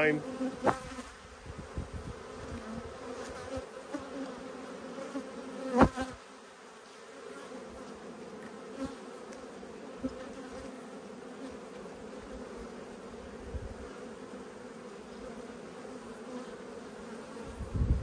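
Honey bees buzzing in a steady hum over an open hive box, a colony that is agitated but not angry. A sharp knock about six seconds in, a smaller one near the start, and low bumps near the end.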